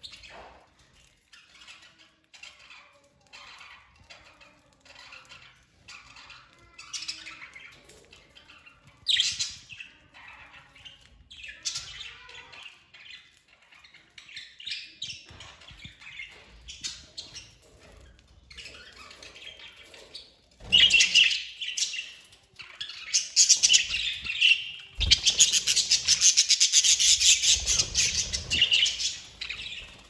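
Budgerigars chirping and chattering, many short calls, with a louder flurry of squawks and wingbeats near the end.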